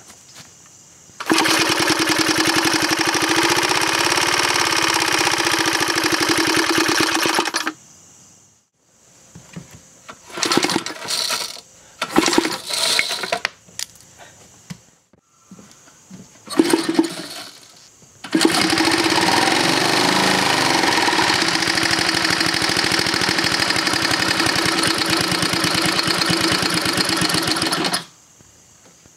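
Small single-cylinder piston-valve engine running at a steady speed for about six seconds and then cutting out. It gives a few short sputtering bursts of firing, then runs steadily again for about ten seconds before cutting out near the end.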